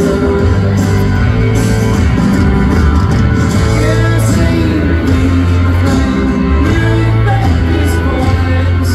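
A country rock band playing live, with drums, bass and guitars and a male voice singing, heard from the stands of a stadium.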